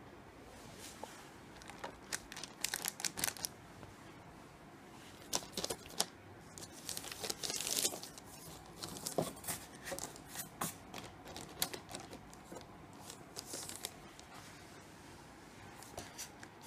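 Clear plastic wrapping on a new electronic keyboard crinkling and crackling as it is handled, in irregular spells that are busiest about eight seconds in.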